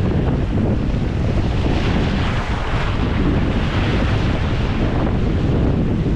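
Wind buffeting the microphone over shore surf. A wave washes in with a rising hiss about two seconds in and fades out a couple of seconds later.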